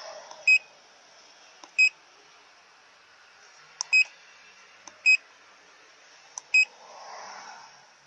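Handheld MaxiDiag Elite OBD scan tool giving short electronic key beeps, five in all, some with a faint button click just before, as its menus are stepped through to read stored trouble codes.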